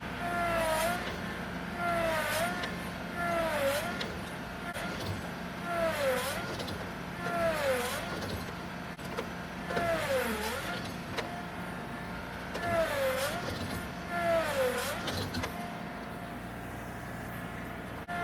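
Tractor engine running under heavy load, with a whine that dips in pitch and recovers over and over, every second or two, as the front loader pushes against a tree being uprooted.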